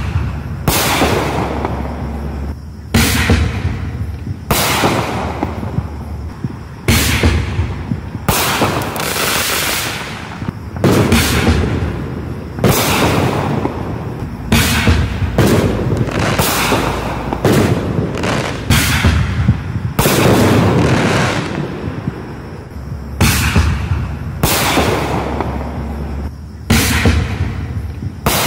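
Black Cat consumer artillery ball shells fired one after another from a launch tube: a run of sharp loud bangs, about one every second or two, each followed by a rolling echo.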